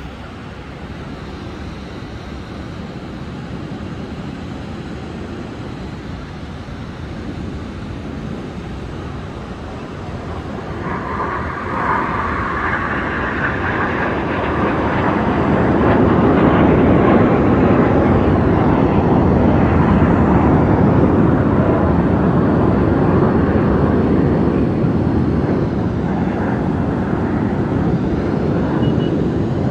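Jets of an aerobatic display formation flying past, their engine roar building from about a third of the way in and staying loud, with a brief higher whine as it rises.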